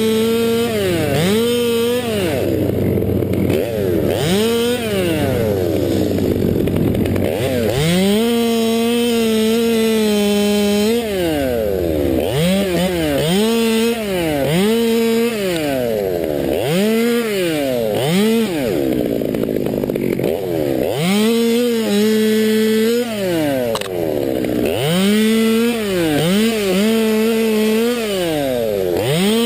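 Two-stroke Stihl 200T top-handle chainsaw revving up and down over and over, held at full throttle for a second or two at a time as it cuts through spruce limbs and wood.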